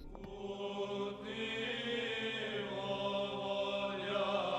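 Choral church chant: several voices holding long, slowly shifting notes.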